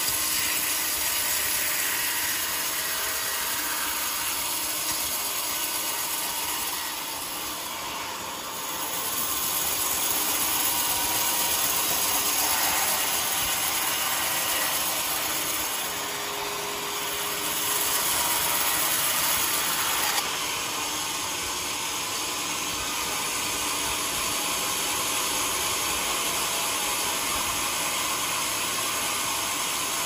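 Large band sawmill running, its blade sawing through a jackfruit log with a steady hiss; the level dips briefly twice.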